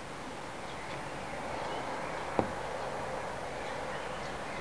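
Outdoor garden ambience: a steady hiss with faint, scattered bird chirps, and one sharp click about halfway through.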